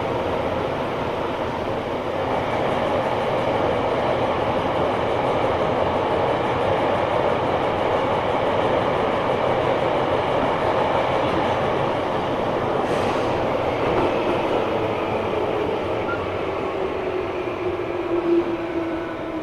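Tobu 9000 series electric train car 9206 running, its armature-chopper-controlled traction motors and wheels making a steady drone with tonal whine. Over the last several seconds one motor tone slides down in pitch. This car had an abnormal motor sound, quite unlike a normal 9000 series, which the uploader suspects came from a different traction motor fitted for a test.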